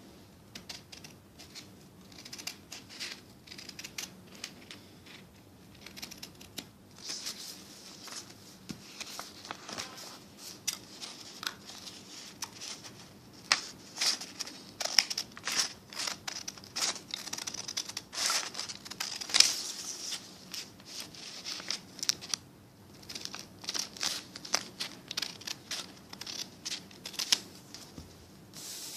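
Paper being snipped with scissors and handled: a long run of short, sharp snips and crinkles, busiest through the middle.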